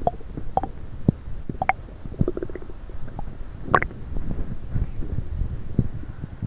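Human stomach gurgling and rumbling with coffee and Diet Coke in it: irregular bubbling pops and squeaks over a low rumble, a quick run of small pops a little after two seconds and the loudest, squeaky gurgle near four seconds in.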